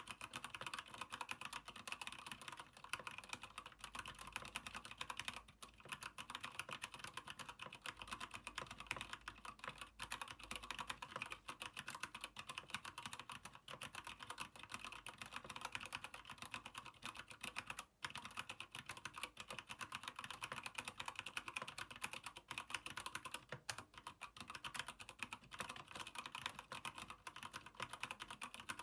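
Keychron K8 mechanical keyboard with Gateron Brown switches and an aluminium frame being typed on continuously: a dense stream of keystroke clacks, with a brief pause about 18 seconds in.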